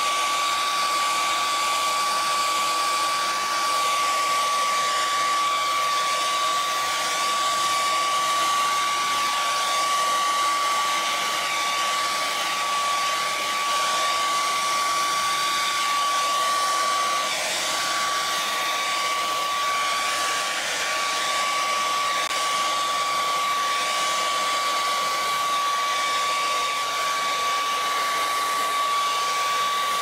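Handheld hair dryer blowing air onto wet acrylic paint on a canvas. It makes a steady hiss of rushing air over a constant high whine from its motor.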